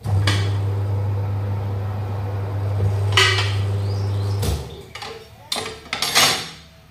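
Tyre changer machine's electric turntable motor running with a steady hum while a tractor tyre sits on its rim on the turntable. There is a sharp metal clank about three seconds in, and the motor stops about four and a half seconds in. Several sharp metal clanks follow near the end.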